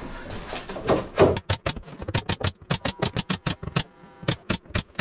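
A quick run of sharp clicks, about six a second, starting about a second in and stopping just before the end.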